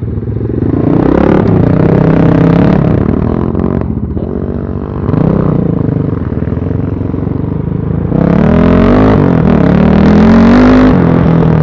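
BSE Z6 enduro motorcycle engine revving under load on a dirt track, the throttle opened and eased repeatedly; about eight seconds in it climbs steeply in pitch and holds high before dropping near the end.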